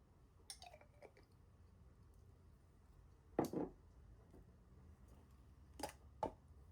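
A few separate soft knocks and clicks of objects being handled, the loudest a double thud about three and a half seconds in and two more clicks near the end.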